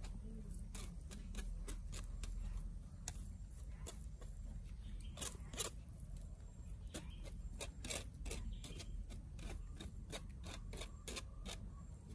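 Irregular light clicks and taps of kitchen utensils on a plate as fried tofu and fried lemongrass are handled, over a low steady rumble.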